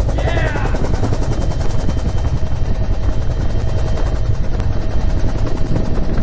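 UH-1 Huey helicopter in flight: its two-blade main rotor beating in a fast, even rhythm over the deep drone of the turbine, heard from inside the cabin with the door open.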